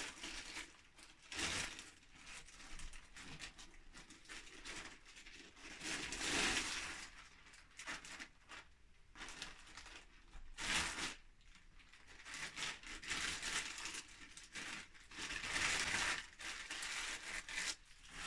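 Packing material being handled during unboxing: irregular crinkling and rustling in bursts of a second or two, several times over.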